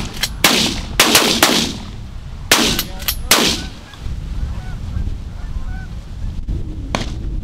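A rapid volley of shotgun blasts from several hunters firing at geese, about nine shots in the first three and a half seconds, then one more shot near the end. In between, geese honk faintly, with wind buffeting the microphone throughout.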